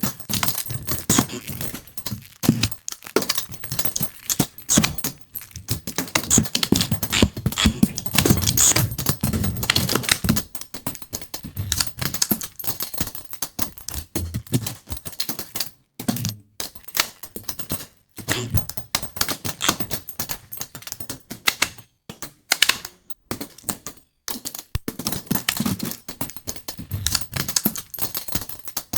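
AI-generated experimental noise from the Stable Audio Open model: a dense, crackling clatter of clicks and rattles, broken by a few short dropouts to silence in the second half.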